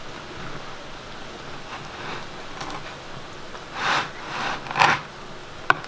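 Bread knife sawing back and forth through the crisp crust of a baked sourdough loaf, a rasping crunch with each stroke, louder near the end. A sharp knock comes just before the end.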